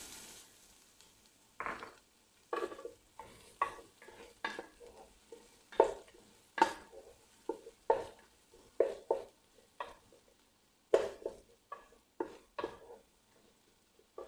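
Wooden spatula stirring chopped onions frying in butter in a metal pot: a series of short scraping strokes, roughly one a second, over a faint sizzle.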